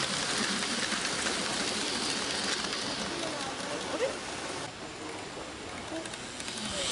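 Model railway freight train of covered wagons running past close by: a dense rattling clatter of many small wheels on the track, which stops abruptly about four and a half seconds in as the last wagon clears.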